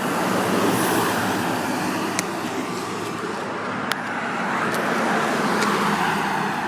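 Steady rush of road traffic, the tyre and engine noise of vehicles passing close by, with a few light clicks.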